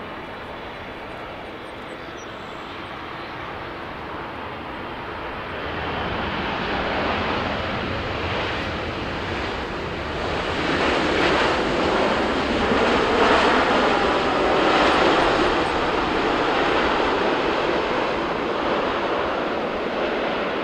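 Roar of a Boeing 777's twin GE90 jet engines on the landing rollout just after touchdown. The roar grows louder about six seconds in and is loudest near the middle.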